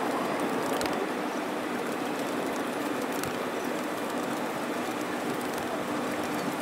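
Steady outdoor city background noise, like distant traffic, with a faint steady hum. A few faint taps come through.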